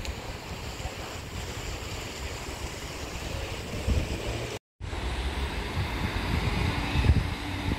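Wind buffeting the microphone over the sound of the sea washing against the sea wall, with gusty low rumbles. The sound cuts out for a moment a little past halfway.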